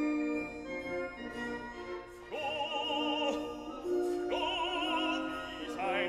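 Background music of sustained held chords, with a high operatic voice coming in about two seconds in, singing long notes with wide vibrato.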